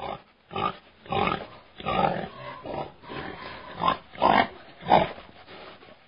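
A boar grunting repeatedly, about eight short grunts spaced roughly half a second to a second apart.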